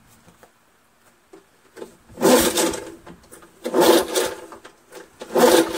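Three slow pulls on the recoil starter rope, each about half a second, turning over the two-stroke engine of an International Harvester 3322 push mower without it firing: a compression check, and it feels decent.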